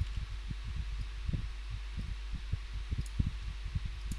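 Steady low electrical hum of the recording setup, with irregular soft low thumps a few times a second.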